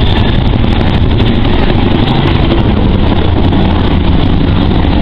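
Boeing CH-47 Chinook tandem-rotor helicopter flying a steep banking turn overhead: loud, steady rotor chop from its two rotors mixed with turbine engine noise.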